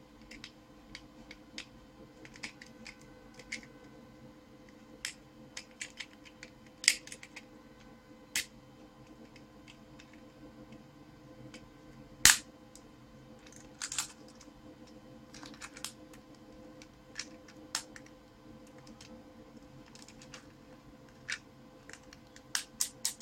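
Scattered sharp plastic clicks and taps as a small plastic pocket multitool is handled and its parts are opened and snapped into place. The loudest click comes about halfway through, and a few more come close together near the end, over a faint steady hum.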